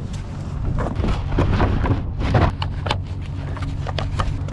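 Clicks, knocks and rustles of cold-weather gear being handled, over a low steady rumble.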